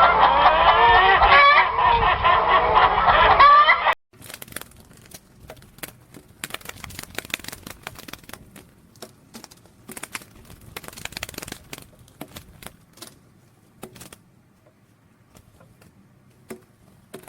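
A flock of poultry clucking and calling loudly over one another, cut off abruptly about four seconds in. After that come only faint, scattered clicks and knocks.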